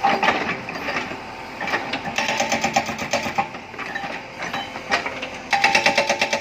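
Hydraulic rock breaker on a Tata Hitachi Shinrai backhoe loader hammering: a few separate blows, then a short run of rapid blows about two seconds in, and from near the end a steady, louder run at about eight blows a second with a metallic ring.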